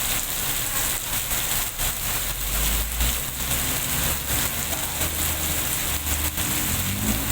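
Rain falling hard, with many separate drop hits. A low steady hum, as of an engine, comes in about two and a half seconds in.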